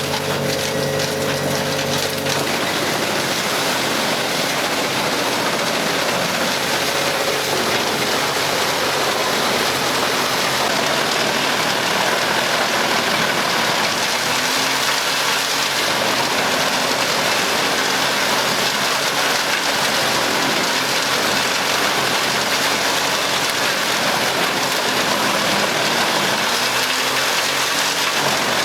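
Large wood chipper running. About two seconds in, its steady engine tone gives way to a loud, even rushing noise of wood being chipped and blown out, with the engine's pitch dipping now and then.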